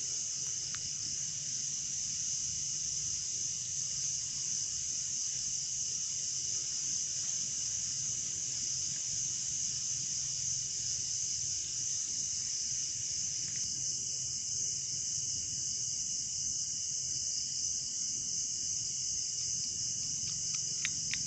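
Steady night chorus of insects such as crickets, a continuous high-pitched trill with a fainter steady tone below it.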